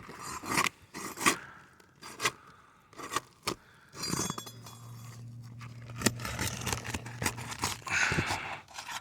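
Shingles being worked loose by hand and tool on a roof: scraping with scattered sharp clicks and snaps as the brittle old shingles are lifted and tear. A low steady hum joins in for a few seconds midway.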